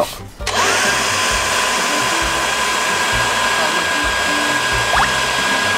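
Handheld electric blower switched on about half a second in: its motor whine rises as it spins up, then runs steady with a strong rush of air from the nozzle.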